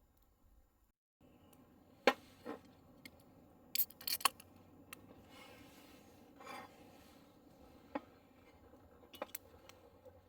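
Scattered light clicks, knocks and rubbing of small objects being handled, with a sharp knock about two seconds in and a quick cluster of clatters near four seconds.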